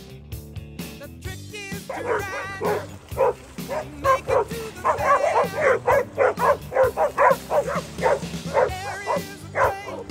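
Several dogs barking and yipping excitedly in quick, overlapping barks, starting about two seconds in: play barking as they chase a big exercise ball through the water. Background music runs underneath.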